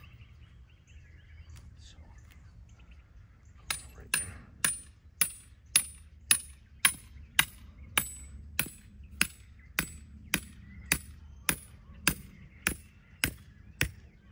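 Hammer driving an anchor spike into a pre-drilled hole in the ground: steady blows about two a second, each a sharp metallic clink, starting about four seconds in.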